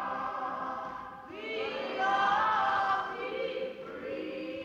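A choir singing in harmony, with held notes; a new, louder phrase begins about a second and a half in, opening with a rising slide.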